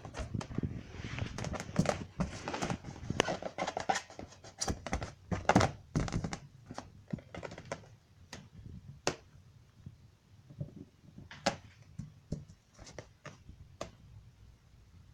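Latex balloon bumped about and rubbing close to the microphone: a dense run of thuds, taps and rubbing sounds for about the first seven seconds, then scattered single knocks.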